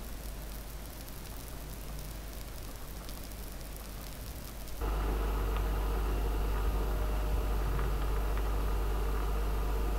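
Saucepan of red lentils and water on the hob, first a faint hiss, then about five seconds in a louder, steady bubbling as the water boils hard.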